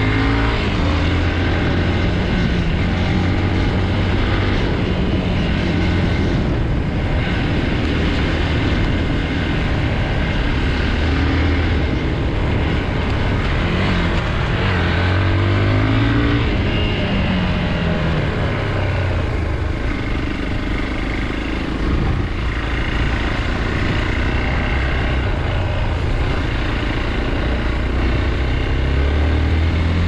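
Hero Xpulse 200's single-cylinder four-stroke engine running as the motorcycle is ridden along a dirt track, rising and falling in pitch several times with throttle and gear changes over a steady rushing noise.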